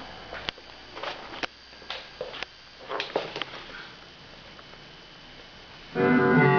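A run of light clicks and knocks, then quiet; about six seconds in, a guitar starts ringing out through a homemade Univibe-clone effect built on the Neovibe circuit with light-dependent resistors.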